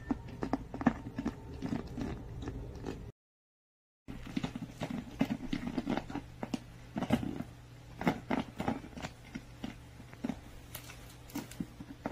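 French bulldog biting and gnawing at the neck and cap of an empty plastic PET water bottle: a run of irregular plastic clicks and crackles. The sound cuts out completely for about a second about three seconds in.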